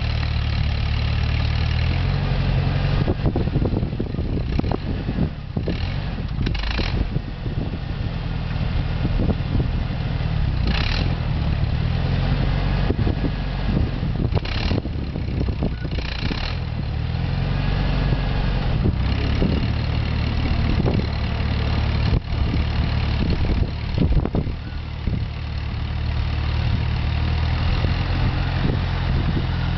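Allis-Chalmers D15 tractor's four-cylinder engine running under load as the tractor works through snowdrifts, its engine speed changing several times.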